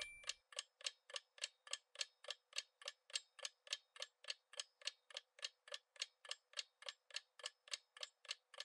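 Quiz countdown-timer sound effect: steady clock-like ticking, about three or four ticks a second, marking the answer time. It starts as the ring of a chime fades out.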